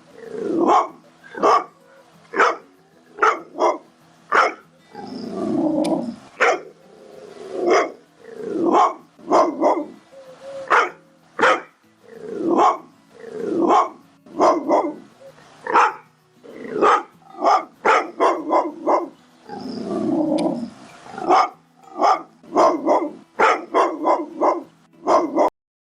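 Pit bull barking repeatedly and aggressively, a sharp bark about every half second to second, broken twice by a longer, lower growling bark.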